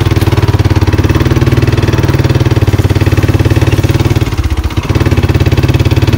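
ATV engine running under way, a steady rapid firing pulse with a brief dip in level a little past four seconds in before it picks back up.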